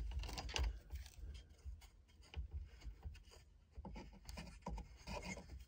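Faint scattered clicks and rubbing from a hand working a 6 mm socket on a screw and loosening a plastic instrument pod among the wiring behind a dashboard.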